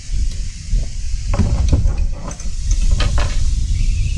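Strong wind buffeting the microphone: a heavy, uneven low rumble with a hiss over it, broken by a few short knocks about a second and a half in and again about three seconds in.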